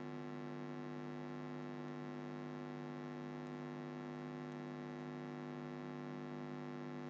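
Steady electrical hum with a stack of even overtones, unchanging throughout.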